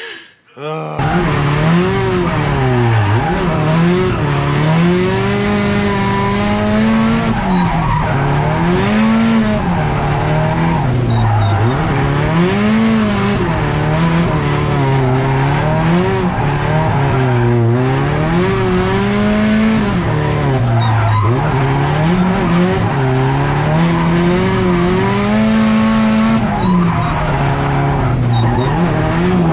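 Drift car engine revving up and down in repeated swings, with tyres squealing as the car slides. It starts about a second in.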